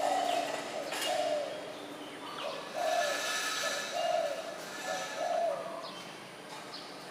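Spotted dove cooing: a series of about five short, soft coos roughly a second apart, with a longer gap after the second.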